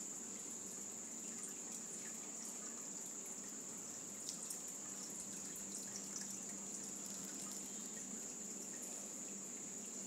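Steady outdoor background with no bird calling: a continuous high-pitched drone over a soft hiss like trickling water, with a few faint ticks about four and six seconds in.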